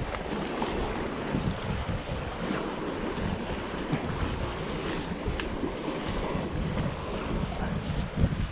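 Sea waves washing against the boulders of a rock breakwater, with wind rumbling on the microphone.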